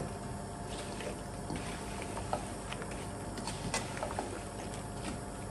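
Sliced okra being stirred in a little oil in a nonstick pan with a silicone spatula: faint scattered clicks and light scrapes over a steady low hiss.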